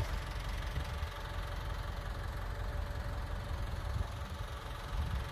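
An engine idling: a steady low rumble with a fast, even pulse.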